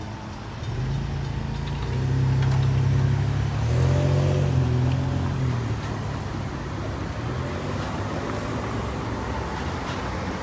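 A vehicle engine passing close by over steady traffic noise. It gets louder about two seconds in, shifts pitch around four seconds, and eases off after about six seconds.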